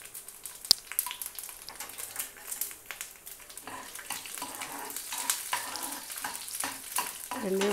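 Garlic cloves, dals and mustard seeds frying in a little oil in a nonstick pan for an Indian tempering (popu), a soft sizzle with scattered crackles and one sharp crack near the start. A steel spoon stirs and scrapes the pan.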